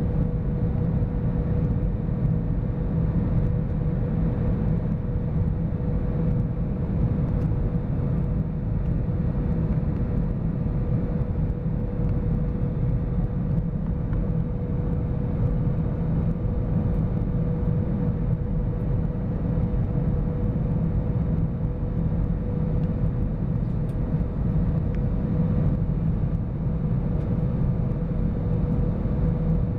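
Steady cabin noise inside an Airbus A320-200 in flight on its approach: a low, even rumble of engines and airflow, with a constant hum held at one pitch throughout.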